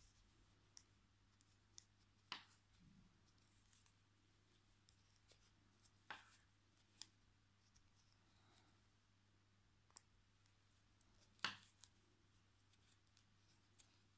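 Metal knitting needles clicking lightly against each other as stitches are worked, a few scattered ticks in near silence, the loudest shortly before the end.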